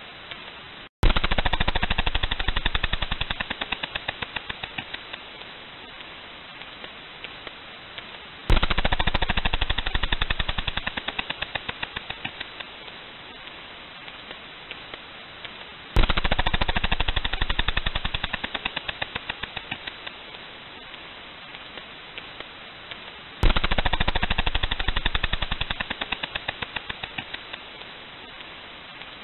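Whale clicks: four rapid trains of clicks, each starting suddenly loud and fading away over about three seconds, coming about every seven and a half seconds.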